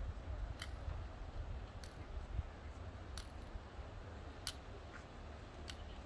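Footsteps on a walking trail: faint sharp clicks, about one every second and a half, over a steady low rumble.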